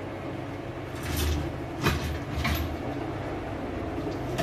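A steady low hum in a kitchen, with a few soft knocks about one, two and two and a half seconds in.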